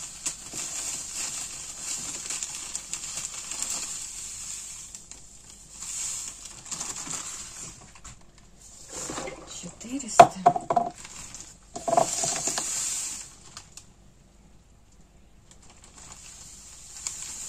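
Salt pouring in several hissing spells from a bag into a plastic measuring jug, measured out for cheese brine. The bag rustles, and a few sharp knocks come about halfway through.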